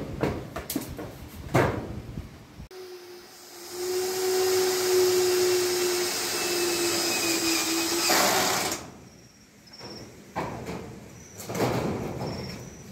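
A handheld power tool starts abruptly, runs steadily at one pitch for about six seconds with a strong hiss, then stops, as metal roofing sheets are being fitted. Scattered knocks come before and after it.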